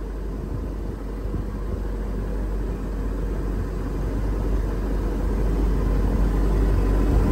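Boat motor running steadily with the boat under way, a dense low rumble that grows gradually louder.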